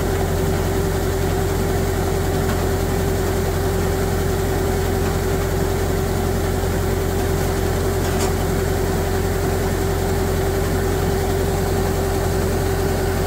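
Rice combine harvester running steadily while unloading grain through its auger into a truck: an even engine drone with a constant whine over it.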